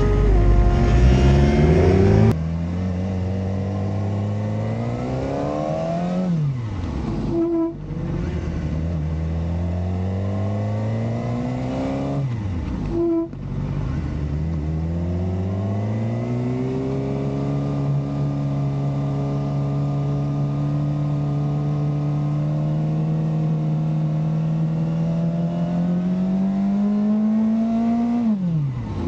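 Suzuki GSX-R600 inline-four sport-bike engine accelerating under way. The revs climb steadily in each gear, with three upshifts that each bring a brief drop in pitch: about a quarter of the way in, near the middle, and near the end.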